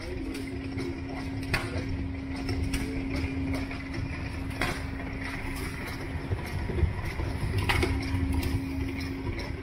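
Steady mechanical hum with a single held tone over a low rumble, and a faint knock about every three seconds.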